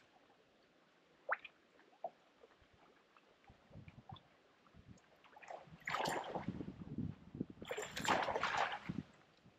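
Lake water sloshing and slapping against a boat hull, in irregular rushes that grow loud about six and eight seconds in after a quiet start.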